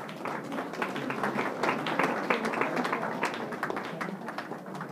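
Audience applauding: a burst of many hands clapping that starts suddenly and dies away near the end.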